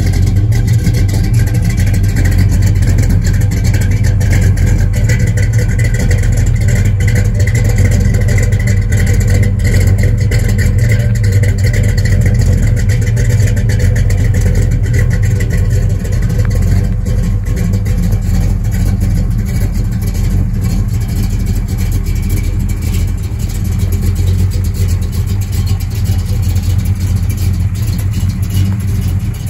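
1973 Plymouth Road Runner's 340 V8, fed by a six-pack of three two-barrel Holley carburettors, running steadily through its dual exhaust just after being started. The engine eases a little about halfway through.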